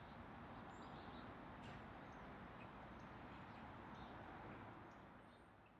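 Near silence: faint outdoor ambience with a few distant bird chirps, fading out near the end.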